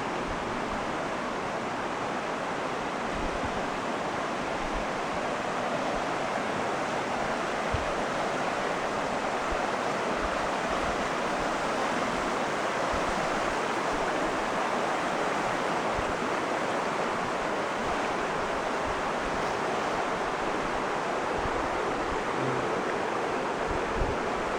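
Steady rush of river water flowing over rocks, an even unbroken noise with no lulls.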